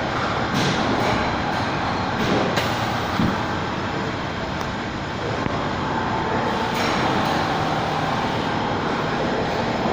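Machinery running with a steady noisy rumble, broken by a few sharp clicks.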